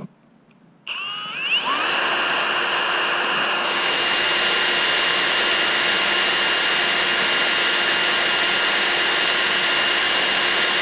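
Cordless drill starting about a second in, its motor whine rising briefly and then holding steady as it drills a small safety-wire hole through a bolt clamped in a vise.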